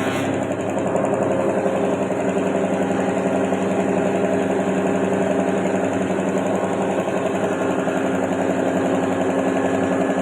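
A motor-driven machine running steadily: a constant hum with a fast, even rattle.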